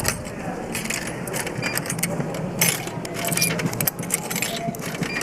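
Coins clinking as they are fed into a drink vending machine's coin slot, a series of short sharp metallic clicks.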